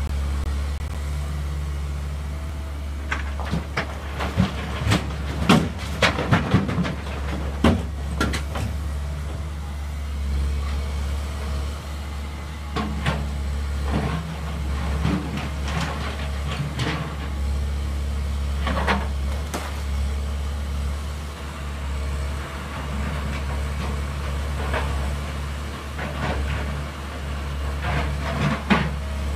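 Diesel engines of a Komatsu PC188MR excavator and a Volvo FMX dump truck running steadily, with several bouts of loud knocks and clatter as rock blocks are loaded into the truck's tipper body.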